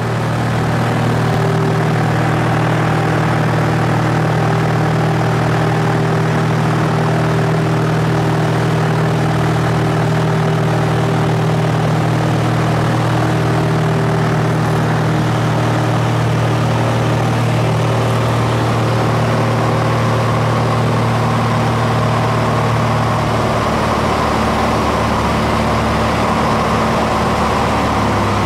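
Propeller aircraft engine droning steadily; about 23 s in its tone settles slightly lower.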